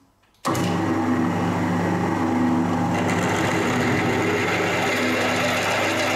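Pillar drill running with a 10 mm twist drill boring through a steel plate: a steady motor hum with a cutting hiss, starting suddenly about half a second in.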